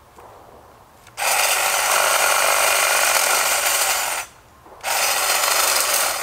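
Black & Decker 20-volt cordless hedge trimmer running and cutting leafy branches, in two runs. The first starts about a second in and lasts about three seconds; the second follows after a short pause.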